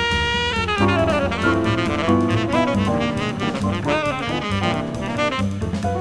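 Jazz quartet playing bebop: the tenor saxophone holds a note for about a second, then runs off quick phrases over bass, piano and drum kit.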